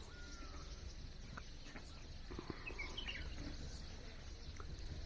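Faint outdoor ambience: a steady low rumble with a few scattered small bird chirps and one short whistled note near the start.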